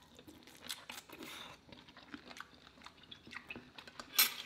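Close-miked eating sounds: biting into and chewing crispy fried prawns, with wet crackles and clicks throughout and one louder crunch about four seconds in.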